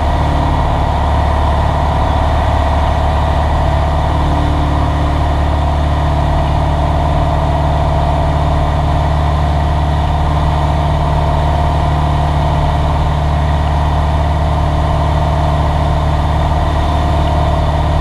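Cessna 172's four-cylinder piston engine and propeller running with a steady drone, heard inside the cabin.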